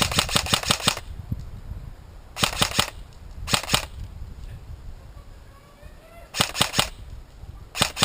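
Airsoft guns firing in quick strings of sharp cracks: a rapid run of about ten shots in the first second, then shorter strings of three to five shots spaced a second or more apart.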